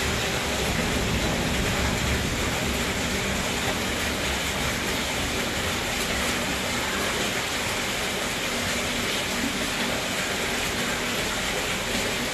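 Heavy rain falling: a steady, even rushing hiss.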